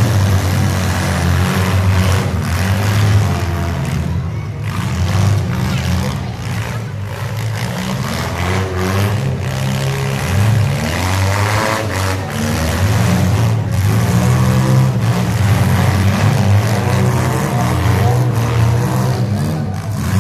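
Demolition derby cars' engines running and revving together, with several sharp bangs of cars colliding.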